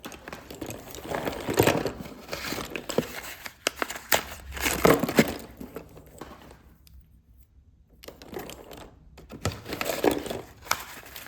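Slate pencils being crunched, with bouts of gritty crunching and crackling separated by short pauses, including an almost silent gap about halfway through.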